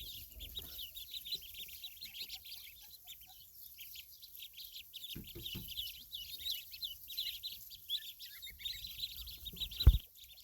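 A brood of ducklings peeping, many short high peeps overlapping without a break. A loud thump near the end, with a few softer knocks about halfway through.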